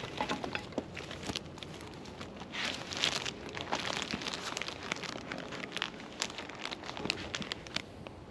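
Bags crinkling and rustling as small items are handled and wrapped, with light clicks and taps throughout; the rustling is loudest about three seconds in.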